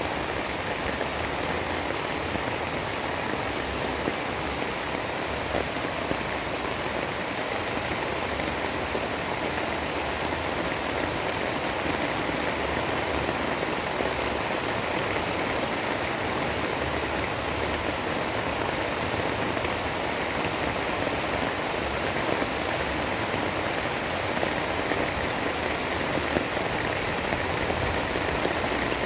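Steady rain falling in an even hiss, with a few brief louder drop taps.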